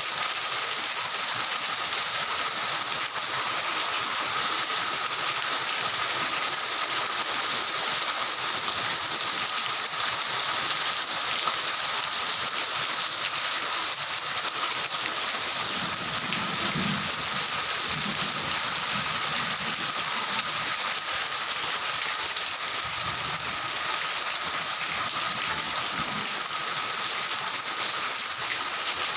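A steady rushing hiss like heavy rain, with a faint high hum. A few faint low sounds come through about halfway in.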